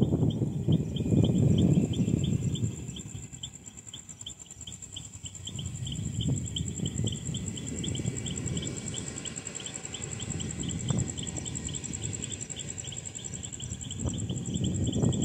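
Insects chirping steadily at about four chirps a second, with a thin high buzz above. Under them runs a louder low rumbling noise that swells and fades, strongest at the start and again near the end.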